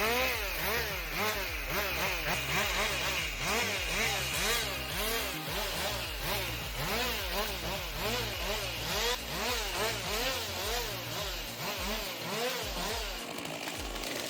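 A small engine revving up and falling back over and over, about twice a second, easing off near the end.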